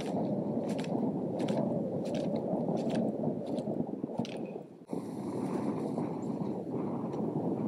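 Wind buffeting the microphone: a steady rough rumble that drops out briefly about five seconds in, with a few faint ticks over it.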